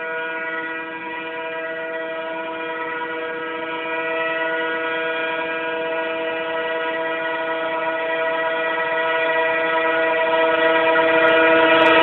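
Indian Railways diesel locomotive's horn blaring non-stop as one unbroken, steady multi-note chord, growing steadily louder as the express approaches.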